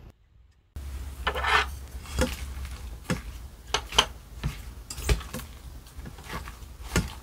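A wooden utensil mixing bibimbap in a metal pot: irregular knocks and scrapes against the pot and a wet rustle of rice, lettuce and vegetables being stirred, starting after a brief silence.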